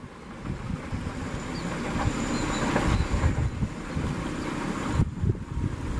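Passenger train carriages running past on the curve, their wheels rumbling and clattering on the rails, growing louder over the first few seconds and then holding.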